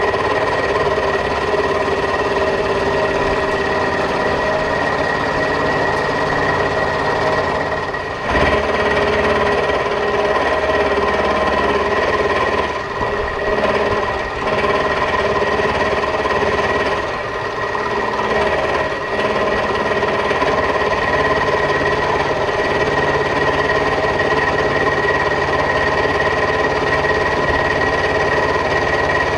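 Vertical milling machine running under load, its end mill cutting metal on a 0.050-inch pass: a steady whine from the spindle drive over a grinding cutting noise. The sound changes briefly about eight seconds in and dips a few times after.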